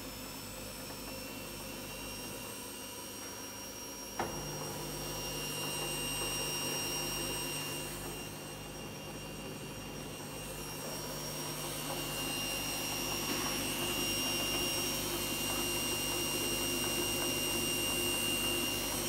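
Samsung Eco Bubble 7 kg washing machine running after repair of its control module, which had left it completely dead. A sharp click about four seconds in is followed by a steady low hum that lasts to the end, under a steady high whine.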